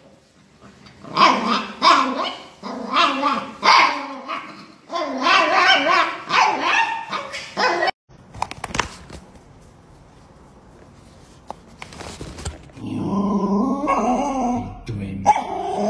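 A dog barking and growling in a string of short bursts, loud and strained. After a sudden cut it goes quieter, with a few clicks. A wavering voice-like sound comes in near the end.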